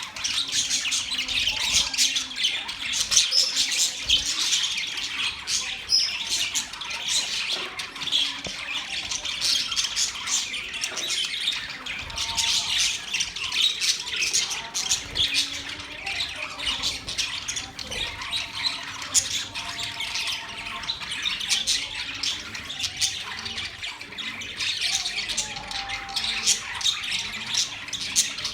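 Budgerigars chattering and chirping without pause, many short squawks and warbles overlapping.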